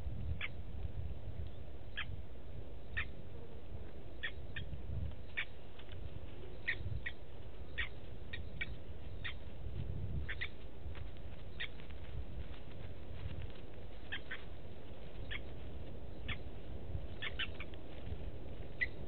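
Short, sharp, metallic 'tink' calls of blacksmith lapwings, repeated irregularly about once or twice a second over a steady low rumble.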